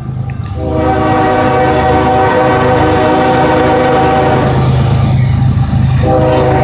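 Union Pacific diesel locomotive's air horn blowing a long blast of several notes at once, starting about half a second in and lasting about four seconds, then a second blast beginning near the end. Underneath is the low rumble of the approaching locomotive, growing louder.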